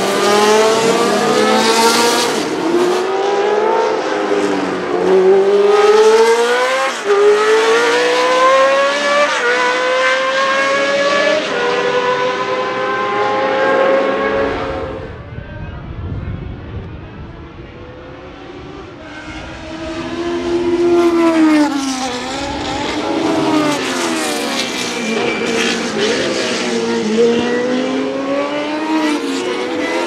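Cosworth DFV 3.0-litre flat-plane V8 of a Ligier JS11/15 Formula 1 car accelerating hard through the gears, its pitch climbing and dropping back at each upshift. A little after halfway it falls to a quieter low rumble for a few seconds, then revs up and down again through the gears.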